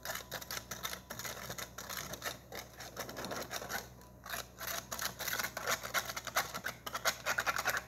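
Small plastic spoon stirring baking soda into water in a clear plastic cup: rapid, irregular clicks and scrapes of the spoon against the cup, getting busier in the second half.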